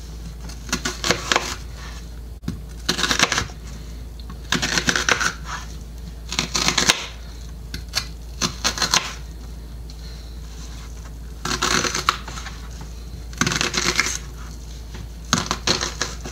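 Kitchen knife dicing a peeled onion on a bamboo cutting board: quick runs of sharp knife taps on the wood, separated by short pauses.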